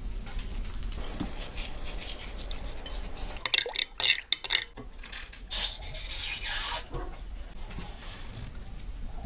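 Kitchen utensils scraping and clinking against cookware, with a quick run of sharp clinks about halfway through and a longer scrape soon after.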